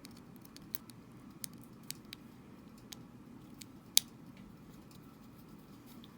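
Scattered small clicks and ticks of a tiny screw and precision screwdriver working against a Joy-Con's plastic housing, with one sharper click about four seconds in.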